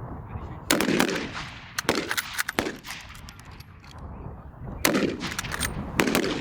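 Full-power rifle shots on a firing line: about five loud, sharp reports at irregular intervals, each with a short echoing tail. Wind rumbles on the microphone underneath.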